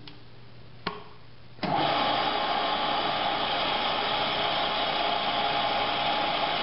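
Milling machine spindle running with a drill bit cutting into the workpiece while a set-screw hole is drilled: a steady, even whir with a hum. After a quieter stretch broken by a single click, it sets in abruptly about a second and a half in.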